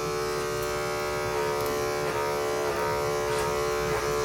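Small electric pet trimmer running with a steady, high-pitched hum.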